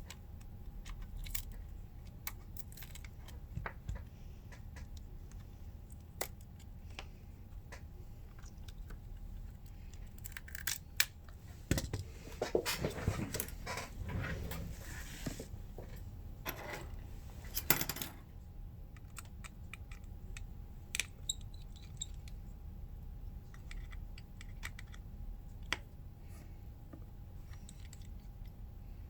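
Small metal tools and phone parts clicking and clinking during a smartphone repair, with a busier stretch of scraping and rustling about halfway through. A faint steady hum runs underneath.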